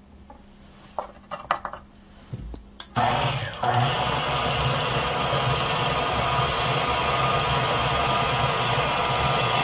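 KitchenAid Deluxe Edition stand mixer switched on about three seconds in and running steadily on low speed, its beater working flour into creamed butter and sugar. A few light knocks come before it starts.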